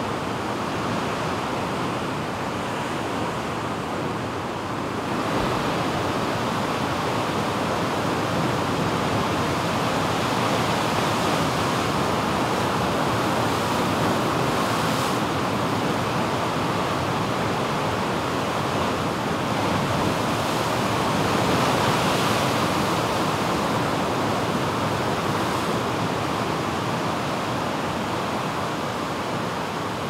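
Heavy ocean surf breaking and washing over a rock shelf: a steady rush of water that grows louder about five seconds in and swells again around twenty-two seconds.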